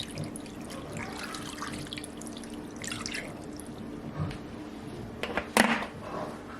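Water running from a kitchen sink tap and splashing in the sink as raw chicken is rinsed, with a single sharp knock a little over five seconds in.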